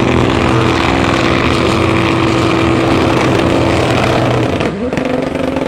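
Drag-race car engine at full throttle, loud, held at one steady high pitch for about four seconds, then dipping and climbing again near the end.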